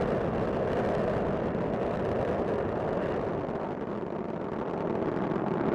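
Space Shuttle Discovery's rocket engines and solid rocket boosters during ascent: a steady, dense rumbling noise with no clear pitch.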